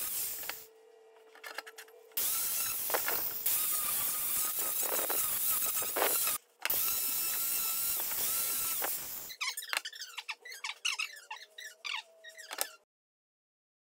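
Angle grinder with a wood-carving disc grinding out the inside of a wooden log, in long loud stretches. About a second in it eases off to a steady hum for a moment, then bites in again. Near the end the grinding breaks into irregular chatter and stops abruptly.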